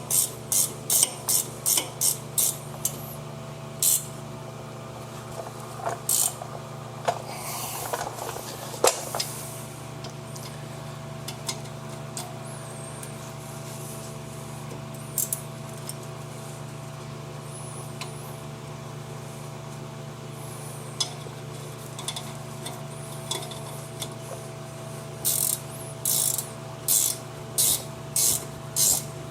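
Ratchet wrench clicking in short even strokes, about two a second, as the brake caliper bolts are run in, first in a run at the start and again near the end, with a few single clicks between. A steady low hum runs underneath.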